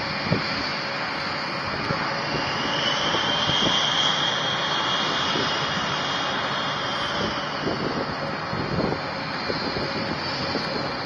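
Rockwell B-1B Lancer's four turbofan jet engines running at taxi power as the bomber rolls along the taxiway: a steady jet roar with a high whine that swells in the middle and then eases off.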